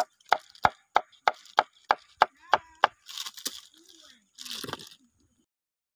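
Knife chopping jackfruit on a wooden board: about ten even strokes, roughly three a second, followed by two short rustling scrapes before the sound cuts off.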